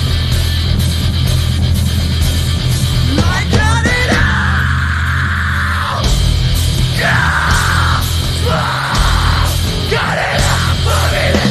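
A post-hardcore rock band playing live, with distorted electric guitars, bass and driving drums. A singer comes in yelling and screaming about four seconds in and goes on in short phrases.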